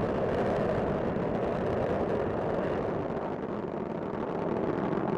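Steady exhaust noise of the Space Shuttle's solid rocket boosters and main engines during ascent, easing slightly a little past halfway.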